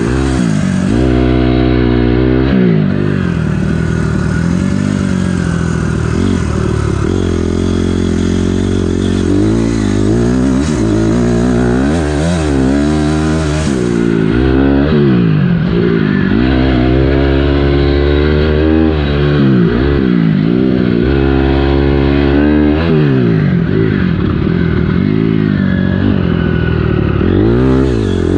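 2006 Honda CRF250R single-cylinder four-stroke dirt bike engine under riding load, its pitch rising and falling again and again as the throttle is opened and closed through the gears.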